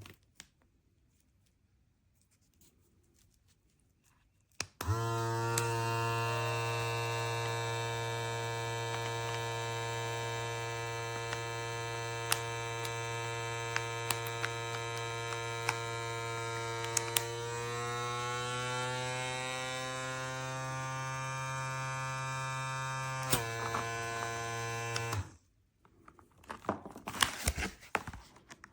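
Small electric vacuum pump of the ikiu mason jar vacuum sealer running with a steady buzzing hum for about twenty seconds, its pitch rising a little past the middle, then stopping. A few clicks and rattles of handling follow near the end.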